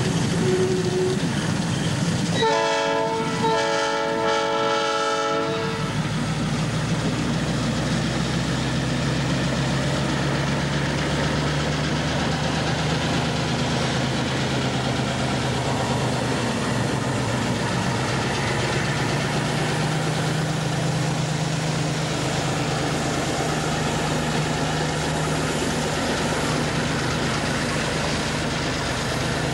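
Diesel switcher locomotive's multi-tone air horn sounds a short blast and then a longer one about three seconds in. After that the locomotive's diesel engine runs steadily as it moves slowly past.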